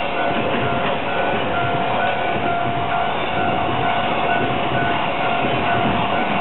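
Container freight train passing at speed: a steady, loud rumble of the flatcars' wheels on the rails, with a steady tone running over it.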